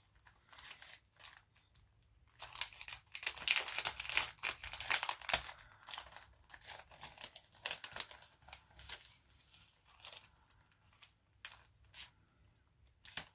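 Packaging and craft paper crinkling and rustling as it is handled and unwrapped. The rustling is dense and loudest in the first half, then turns to scattered, softer rustles.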